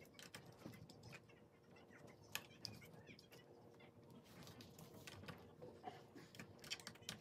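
Faint, irregular clicks and taps of small metal hardware and hand tools being handled at an electric scooter's rear wheel axle, over a low room hum.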